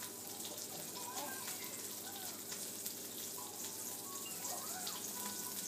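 Wooden spoon stirring pancake batter in a plastic mixing bowl: faint wet scraping with light ticks of the spoon against the bowl.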